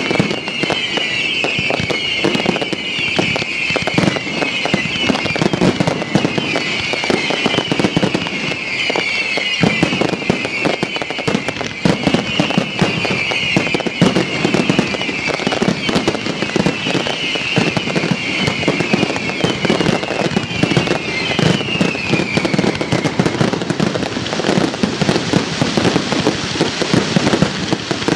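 Fireworks display: a dense barrage of aerial shells bursting and crackling, bang after bang. Over it, a high falling whistle repeats about every second and a half and dies away about three-quarters of the way through.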